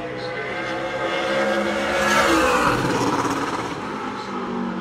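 A super late model stock car's V8 racing engine at speed on a qualifying lap. It grows louder to a peak about two seconds in as the car passes, its note bending downward as it goes by, then fades somewhat.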